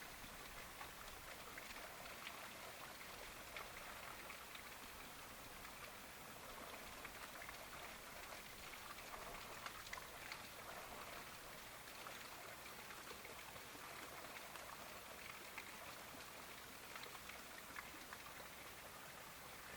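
Faint, steady light rain pattering, a soft hiss dotted with many small drip ticks.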